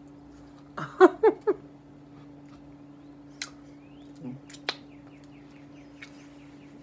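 Eating mouth sounds: a brief hummed vocal sound about a second in, then a few sharp wet clicks and smacks from lips and licked fingers, over a steady low hum.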